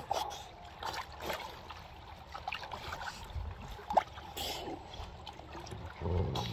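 Water splashing and lapping at the surface as seals swim and surface close by, in an irregular patter of small splashes. A single sharp splash or knock stands out about four seconds in.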